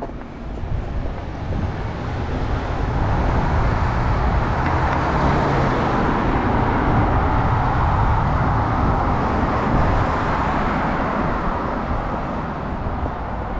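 Road traffic on a city street: a vehicle passing, its tyre and engine noise swelling over several seconds and then fading away.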